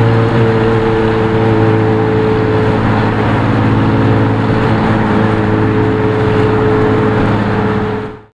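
Straight-piped Lamborghini Murciélago LP640 V12 droning steadily at an even cruise, heard from inside the cabin. It fades out quickly near the end.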